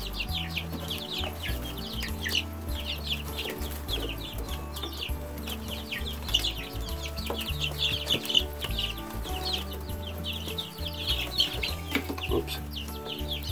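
Three-week-old Rhode Island Red and Novogen Brown chicks peeping nonstop, many short falling chirps overlapping, over background music with held low notes.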